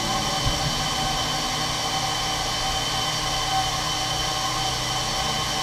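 Steady hum and hiss of running machinery, with a few steady whining tones over it and a faint thump about half a second in.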